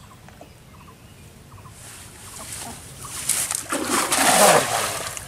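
A cast net thrown over a pond lands: its weighted rim and mesh come down on the water in a long spattering splash that builds from about two seconds in and peaks near the end. Before it there are faint bird calls.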